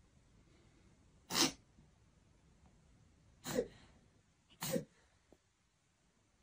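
Three short, sharp sneezes a second or two apart, the last two close together.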